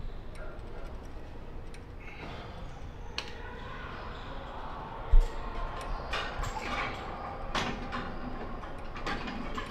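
Cable lat-pulldown machine being worked: the weight stack slides on its guide rods and the cable runs over the pulleys, with one dull low thump about five seconds in and several sharp clinks of the stack later on.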